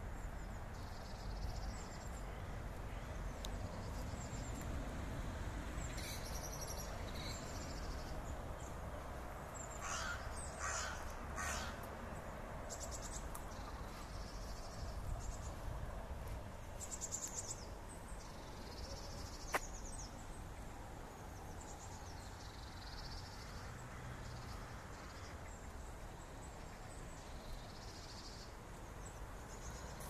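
Birds singing and calling, with a few harsh caws about ten seconds in, over a steady low rumble. A single sharp click comes about twenty seconds in.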